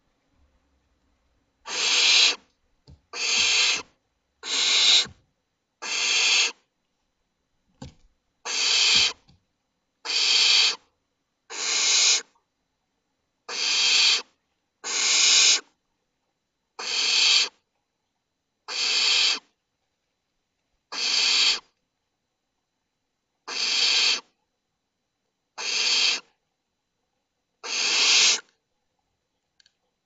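Barn owl nestlings giving their hissing, snore-like food-begging calls: about fifteen harsh rasps, each under a second and swelling toward its end, repeated every one to two seconds.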